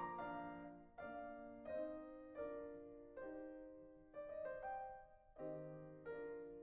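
Quiet background piano music: slow chords struck about once a second, each left to fade.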